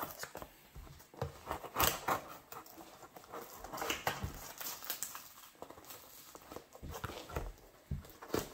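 Folding pocketknife blade cutting and scraping along packing tape on a cardboard shipping box, in irregular short scratches and taps, the loudest about two seconds in.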